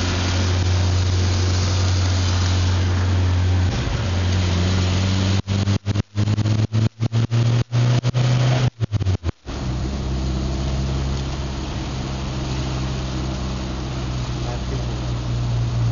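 Engine and road noise of a Citroën BX heard from inside the cabin while driving, a steady low drone. The recording cuts out in a string of short gaps around the middle.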